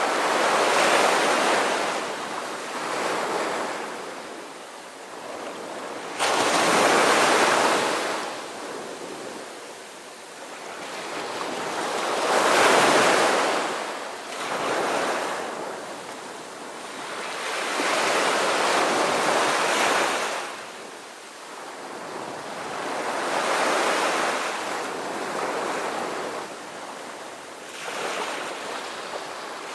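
Sea waves washing in and drawing back, the rush swelling and falling every few seconds, one swell starting abruptly about six seconds in.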